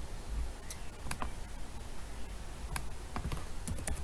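Computer keyboard keystrokes and mouse clicks: a few single clicks spaced well apart, then a quicker run of keystrokes near the end, over a faint low hum.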